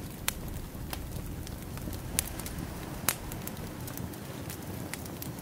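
Wood fire crackling: a few sharp, isolated pops over a low steady rumble.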